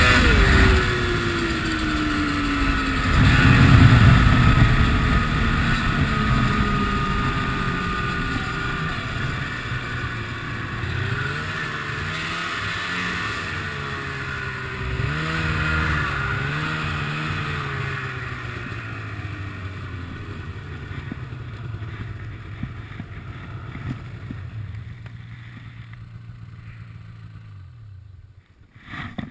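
Ski-Doo MXZ two-stroke snowmobile engine coming off the throttle, its revs falling over several seconds, then a few short throttle blips in the middle. It settles to a low, steady idle that fades and stops near the end.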